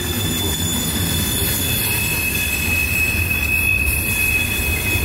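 CSX freight train's cars rolling past: a steady rumble of wheels on rail under a high, steady wheel squeal that changes to a lower squeal about two seconds in.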